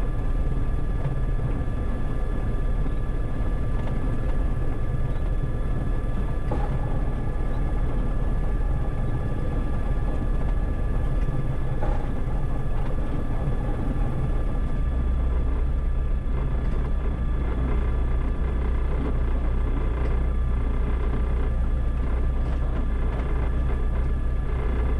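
Diamond DA-20's piston engine and propeller running at low taxi power, a steady drone heard from inside the cockpit. Its low note shifts lower about fifteen seconds in.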